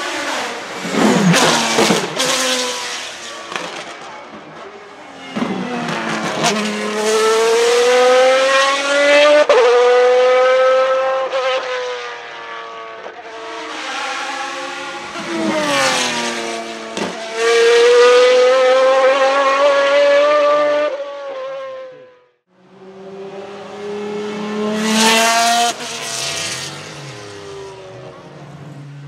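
Maserati MC12 Corsa's naturally aspirated 6-litre V12 at full throttle on several runs. The pitch climbs and then drops sharply at each upshift. The sound cuts out briefly about two-thirds of the way through, then another hard run begins.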